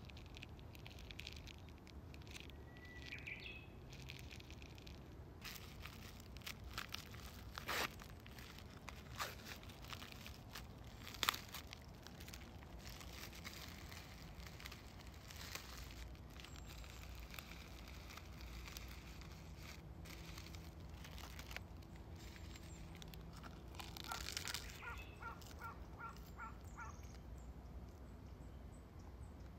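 Plastic film wrapper of a convenience-store rice ball crinkling and tearing as it is peeled open, with sharp crackles at the pulls. Birds chirp faintly in the background, with a quick run of short notes near the end.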